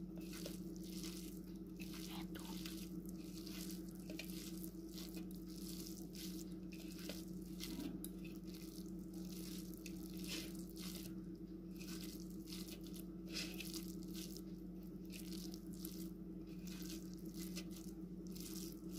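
Fingers mashing and kneading oily fried hilsa-tail bharta on a steel plate: faint, irregular wet squishes and crackles. A steady low hum runs underneath.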